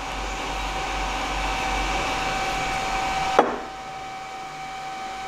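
Steady whooshing workshop machine noise with a high steady whine above it. About three and a half seconds in there is a sharp click and the whooshing cuts off, leaving the whine.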